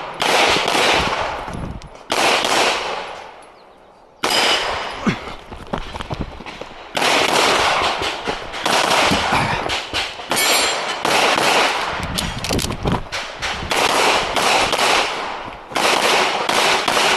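Pistol shots fired in quick strings, each crack followed by a short echo, with a pause of about two seconds near the start of the run.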